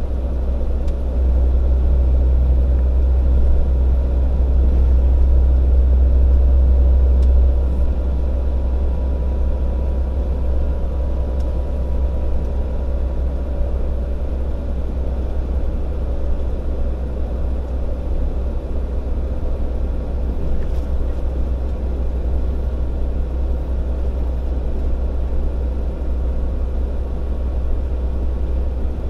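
Large tractor-trailer truck running down a steep downhill grade: steady deep engine and road rumble, a little louder for the first several seconds, with a faint steady whine.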